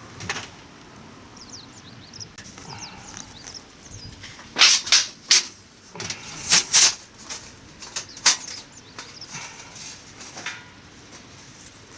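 Faint outdoor birdsong, broken by a handful of short, sharp rustling or crunching noises in the middle, about a dozen in all, in two or three clusters.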